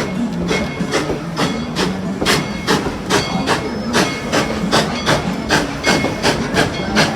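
Tweetsie Railroad No. 190, a Mikado (2-8-2) steam locomotive, exhausting in a steady rhythm of sharp chuffs, a little over two a second, as it works up a grade.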